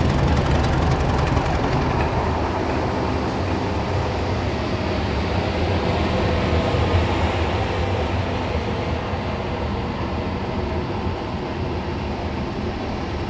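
British Rail Class 31 diesel-electric locomotive's English Electric V12 diesel engine running with a steady low hum, growing a little quieter in the second half.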